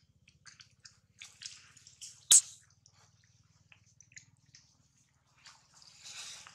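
Soft wet clicks and smacks from a newborn macaque's mouth as it roots about at its mother's belly, scattered irregularly, with one sharp loud click about two seconds in. A faint low buzz runs underneath.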